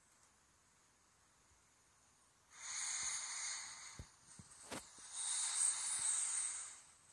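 Two long hissing breaths close to the microphone, the first about two and a half seconds in and the second just after a couple of light clicks.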